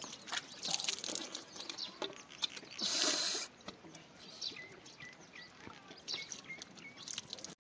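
Small birds chirping in short repeated calls, among scattered clicks and knocks, with a brief burst of hiss about three seconds in.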